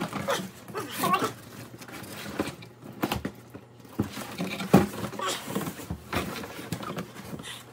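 Cardboard boxes scraping, rustling and knocking in a run of irregular thumps, the loudest about five seconds in, as a boxed snare drum is worked out of a larger shipping box.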